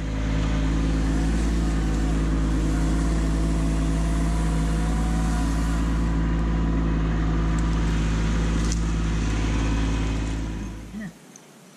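Kubota B2601 compact tractor's three-cylinder diesel engine running steadily as the tractor moves with its grapple. It fades out about ten seconds in.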